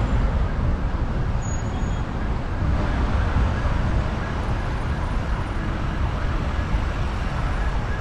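Steady road traffic noise from a busy multi-lane street: a continuous low rumble of many cars' engines and tyres.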